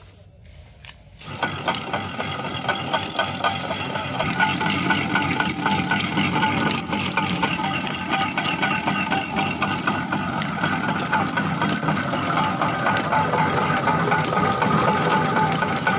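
Sugarcane crusher running, its geared cast-iron rollers crushing canes as they are fed in: a loud, steady mechanical clatter with a regular high ticking. It starts suddenly about a second in.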